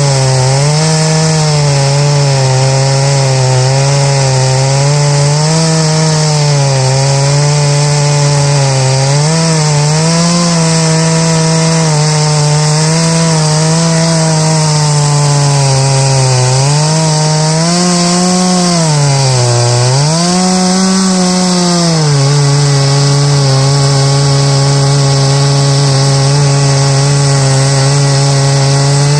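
Large-displacement two-stroke chainsaw running at full throttle under load as it rips lengthwise through an oak log in a chainsaw mill. The engine pitch wavers, dips twice briefly about two-thirds of the way through as the saw bogs in the cut, then holds steady.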